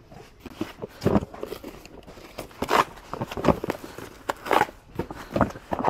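Handling noise: irregular crackling knocks, about one every second or so, with smaller ticks between them, from a cardboard box and the carried camera being jostled while walking.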